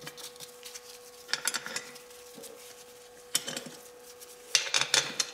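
Bolts and the cast-metal halves of a Polaris ATV oil reservoir clinking and tapping as they are handled and fitted back together, in three short clusters of clinks: about a second in, midway, and a denser run near the end.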